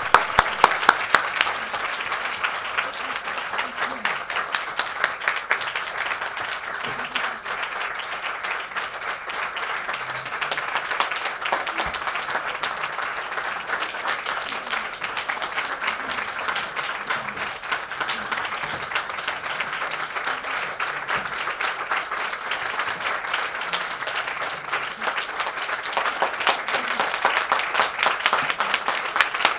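Sustained applause from a room full of people clapping, an even crackle of many hands. A few sharp, loud claps close by in the first second or so.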